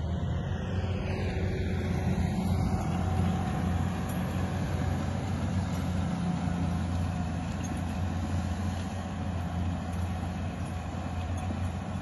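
Two tractors' diesel engines running steadily under load while ploughing, one tractor pulling the other as it draws a five-furrow plough through heavy soil.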